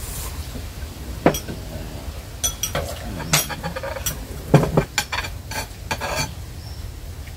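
Spoons and chopsticks clinking and scraping against ceramic bowls and a plate of rice while people eat, with a handful of sharp clinks scattered through.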